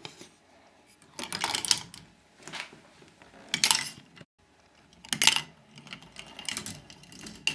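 K'nex ball machine clicking and clattering, hard plastic parts knocking together in short irregular bursts, about six or seven times.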